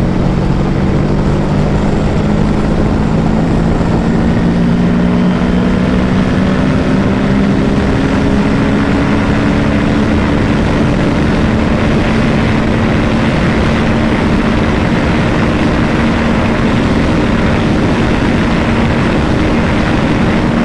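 Kawasaki Ninja 650's parallel-twin engine running flat out at around 200 km/h on a top-speed run. Its pitch creeps up slowly and then holds steady under heavy wind rush on the microphone.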